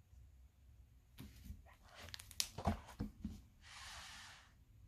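Hardcover board book being handled and closed: a quick cluster of soft clicks and knocks from the stiff pages and cover coming together. Near the end comes a soft hiss about a second long.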